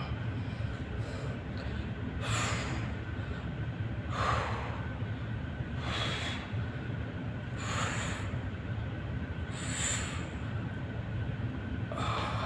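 A man breathing out hard through his mouth and nose, six short forceful exhalations about two seconds apart, one with each dumbbell raise. A steady low rumble runs underneath.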